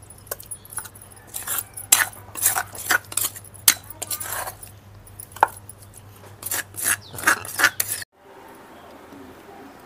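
A steel spoon scraping ground chutney out of a stone mortar and knocking against a stainless steel container: a quick run of sharp scrapes and clinks that stops abruptly about eight seconds in.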